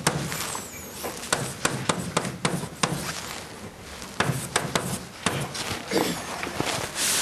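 Chalk tapping and scraping on a blackboard as single digits are written: a run of sharp taps, a short pause midway, then more taps.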